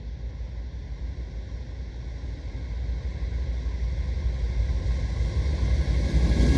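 Low rumble of an approaching freight train's diesel locomotives, growing steadily louder.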